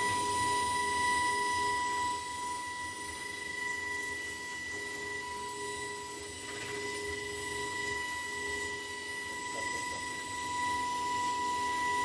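CNC lining drawing and cutting machine running, giving a steady high-pitched whine with a lower tone that comes and goes.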